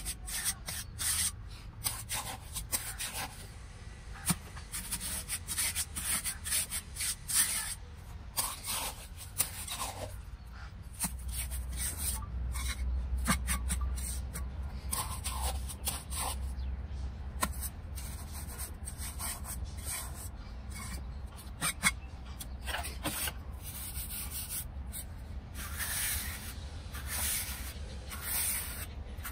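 Steel trowel scraping and smearing wet cement mortar over the inside walls and floor of a cement planter box, in many short, irregular strokes.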